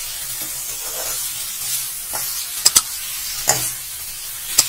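Thick grated-pumpkin barfi mixture being stirred and scraped with a steel spoon in a hot metal pan, cooked down to halwa thickness. A steady sizzle and scrape runs through, with a few sharp clicks of the spoon against the pan, two close together a little under three seconds in, one at about three and a half seconds and one near the end.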